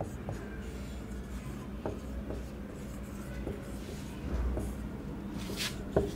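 Marker pen scratching and tapping on a whiteboard in short strokes as words are written, with a sharper tap near the end.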